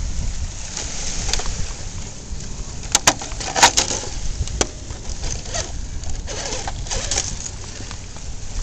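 Radio-controlled rock crawler clambering over rocks: a few sharp clacks, clustered about three to four seconds in, over a low rumble.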